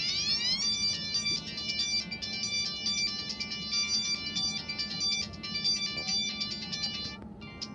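A Samsung GT-E1150 mobile phone playing one of its built-in ringtones through its small speaker. It opens with a rising sweep and goes into a bright, repeating electronic melody that stops about seven seconds in, followed by a few short clicks.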